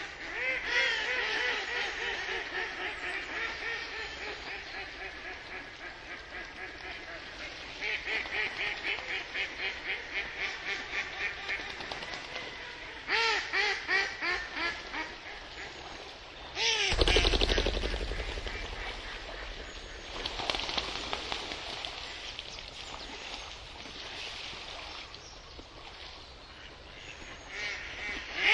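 Farm ducks quacking in repeated runs of short calls, at times several a second in quick series. A sudden low thump about seventeen seconds in is the loudest moment.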